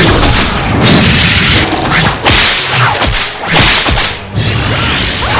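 Cartoon action sound effects: a rapid string of loud whooshes and whip-like lashes, about one a second.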